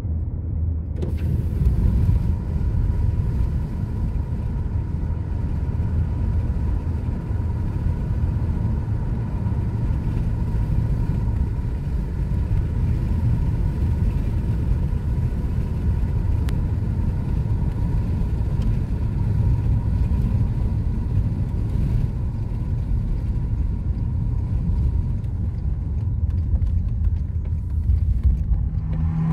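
Steady hum and rumble of a car driving on the road, heard inside the moving car's cabin: engine and tyre noise, swelling slightly near the end.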